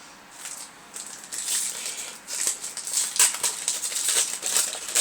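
Yu-Gi-Oh booster pack and cards being handled: a quick run of crinkling, rustling scrapes that grows louder about a second in.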